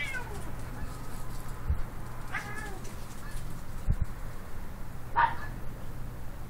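Domestic cat meowing three times, the first call sliding down in pitch and the last the loudest, complaining at a Shiba Inu that is pestering it.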